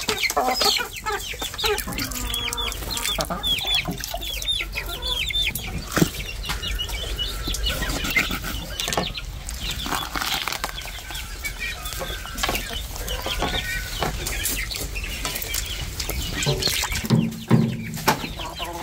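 Chickens clucking and squawking in quick short calls as they squabble over food scraps, with scattered knocks.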